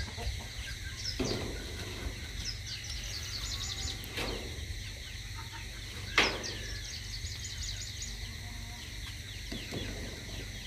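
Birds chirping in quick runs of short high notes, in the manner of chickens or chicks. Two sharp knocks come about four and six seconds in, the second the loudest.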